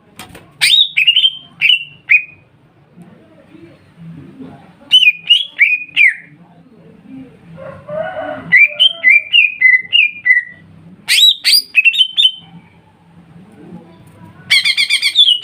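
Cucak ijo (greater green leafbird) song: loud runs of three or four quick down-slurred whistled notes with short pauses between them, a harsher, lower chattering call about eight seconds in, and a fast dense trill near the end.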